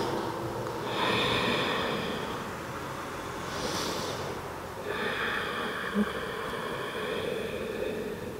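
A woman breathing slowly and deeply: two long breaths out with a shorter, sharper breath in between. There is a brief knock about six seconds in.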